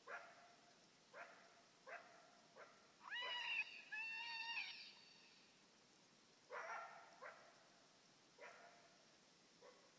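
Coyote barking in response to an electronic game caller. It gives about eight short, sharp barks, spaced roughly a second apart, and breaks about three seconds in into a two-note howl, the loudest sound. The whole is faint.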